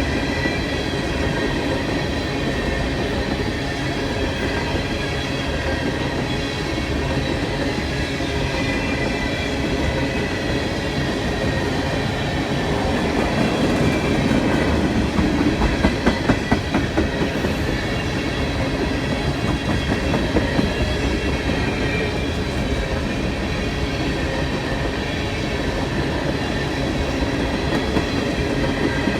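Freight train cars rolling slowly past, a steady rumble with a faint high wheel squeal. A quick run of clacks over rail joints comes about halfway through.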